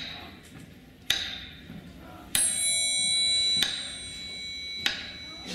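Sharp, ringing ticks about every second and a quarter, with a louder bell ringing for about a second near the middle.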